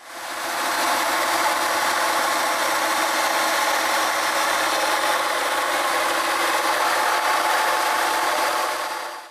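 DS301 handheld planetary polisher, driven by a FEIN polisher motor, running steadily on a wet concrete countertop: a constant motor whine over the hiss of the pads on the surface. It fades in at the start and fades out at the end.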